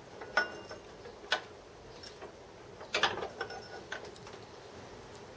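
Small hammer tapping a steel core to knock it out of a fresh metal casting held in a bench vise: about half a dozen sharp metallic taps, irregularly spaced, some with a brief ring.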